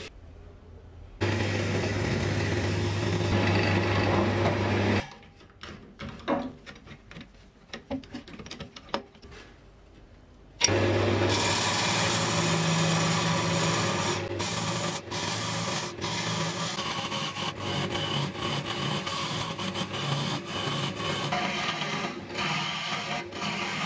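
Wood lathe running with a low hum while a gouge cuts into a spinning blank of glued pencils, making a steady scraping hiss. About five seconds in it drops to quiet scattered ticks for several seconds, then the hum and cutting come back suddenly and carry on.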